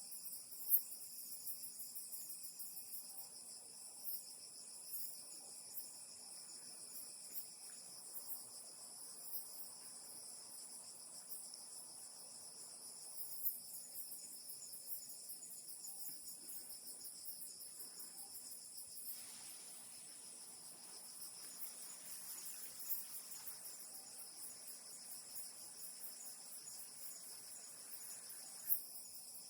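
Night insects, likely crickets, keep up a steady high-pitched chirring chorus. A few short sharp clicks stand out above it, the loudest about a second in and again near the end.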